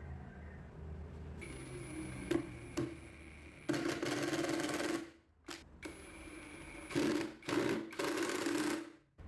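Homemade drum sander running with a steady whine, its sandpaper drum grinding on wood in several loud bursts, with a couple of sharp clicks before the first.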